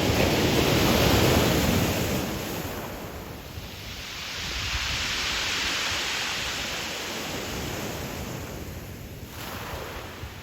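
Sea waves breaking and washing up the pebble shore of Qixingtan Beach: a loud surge in the first two seconds, a second, softer wash in the middle, and a small one near the end.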